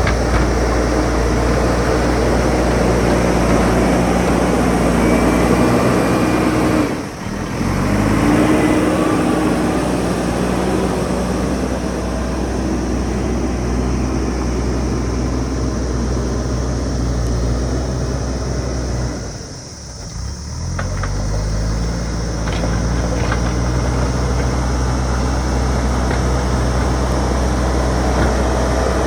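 JCB backhoe loader's diesel engine running hard. Twice, about seven seconds in and again near twenty seconds, it drops in revs and then climbs back up.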